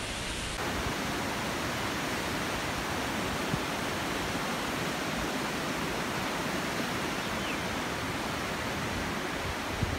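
Fast, turbulent river rushing over rocks: a steady, even rush of water.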